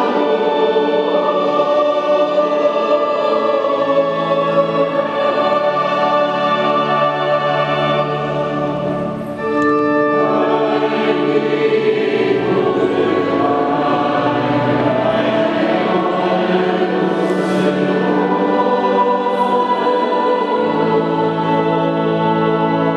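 Church choir singing a slow hymn in long held notes, with a short break between phrases about nine seconds in before the singing goes on.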